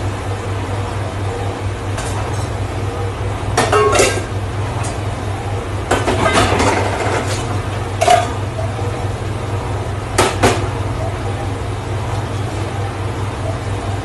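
Stainless steel pots and containers clanking and clinking as they are handled and set into a dish rack, in scattered knocks with a short cluster about halfway through and two quick knocks near the end. A steady low hum of kitchen machinery runs underneath.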